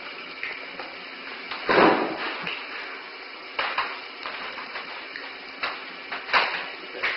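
Handling noise from a rubber M40 gas mask being turned over in the hands: a short noisy burst about two seconds in, then a few sharp clicks, over steady tape hiss.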